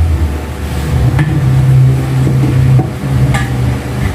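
Dish-rack frame rods being handled and fitted together, giving a few sharp clicks and knocks, over a steady low hum.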